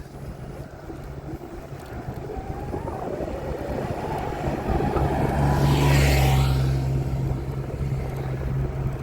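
A motor vehicle passes by with a low steady engine hum. It grows louder to a peak about six seconds in, then fades.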